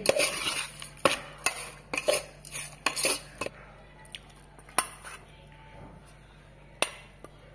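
A metal spoon scraping and clinking against a stainless-steel bowl while stirring a crumbly puttu mix of damp rice flour and grated coconut. After a dense run of strokes it thins out to a few sharp clinks as the mix is spooned into a second steel bowl.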